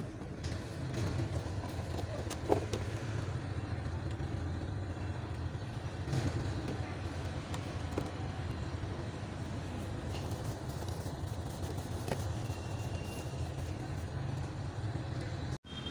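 A steady low rumble runs throughout, with a few clicks and light knocks of plastic as the old air filter is lifted out of the airbox, the sharpest about two and a half seconds in. The sound cuts off suddenly just before the end.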